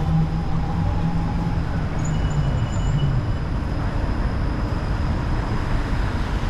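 Downtown street traffic: a steady rumble of passing vehicles, with a low engine hum that fades out about three seconds in.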